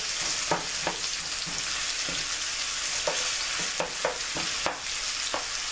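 Onions sizzling in hot oil in a frying pan, with the scrape and clack of a utensil stirring them every so often. The onions are frying ahead of the potatoes so they cook through.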